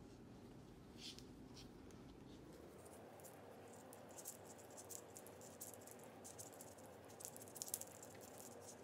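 Faint light clicks and scratches of knitting needles working yarn through stitches. The clicks come irregularly, sparse at first and more often in the second half, thickest near the end.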